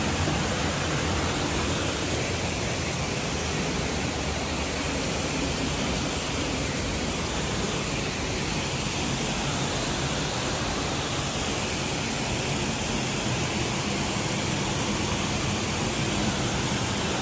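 Waterfall and cascade rushing steadily over boulders into a rock pool.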